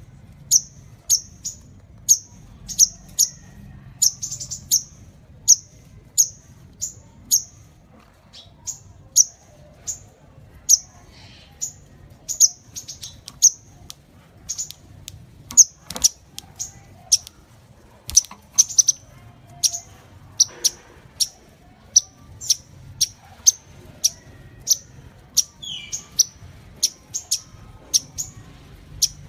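Sunbird calling: a long, regular series of short, sharp, high chirps, about two a second.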